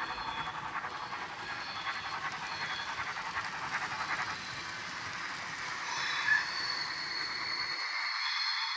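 ESU sound decoder with Henning's BR 52 sound project in a Tillig TT-scale model steam locomotive, playing the locomotive's running sound through its small speaker as the model drives along: a quick, even beat that fades over the second half. A short sharp sound comes about six seconds in.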